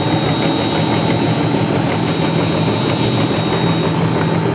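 Steady, loud drone of snack extrusion line machinery running, with a constant motor hum and a thin high whine.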